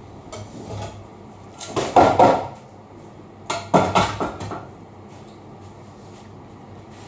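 Metal cooking pots clattering on a stovetop in two short bouts, about two seconds in and again about four seconds in, over a low steady hum.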